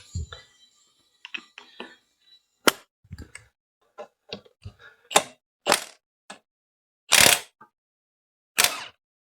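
Tools working the engine-mount bolts of a Royal Enfield Classic 500: an irregular run of sharp metallic clicks and knocks, with two louder, longer cracking bursts near the end.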